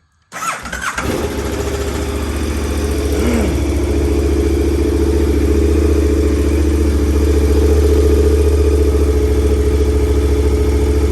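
2020 KTM 1290 Super Adventure's V-twin engine on its stock exhaust, starting up about a third of a second in and then idling steadily.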